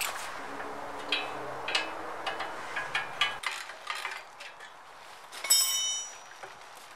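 Metal clinks and taps as a spanner and hands tighten fittings at the handwheel hub of an Ozito cement mixer during assembly, with a short ringing tone about five and a half seconds in.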